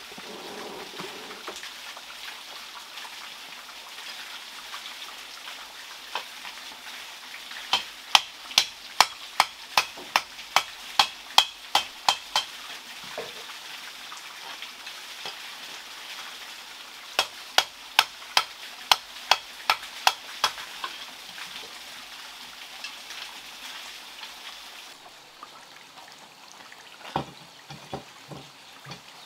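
Hammer forging an iron pan: two runs of even blows, about three a second, each with a short metallic ring, over a steady background hiss. A few lighter knocks follow near the end.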